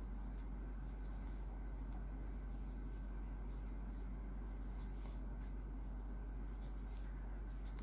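Steady low hum of room tone, with faint scattered ticks and rustles of a crochet hook drawing yarn through loops to form a puff stitch.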